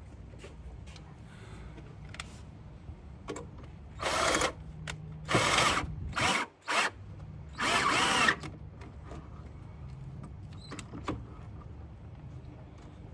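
A power drill running in about five short bursts of a second or less each, with its speed rising and falling, over a steady low hum.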